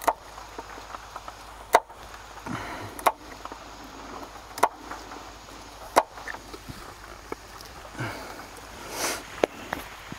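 A knife slicing a wax candle into small pieces on a wooden board. There are about six sharp knocks, spaced irregularly, as the blade cuts through and strikes the board, with softer scraping between them.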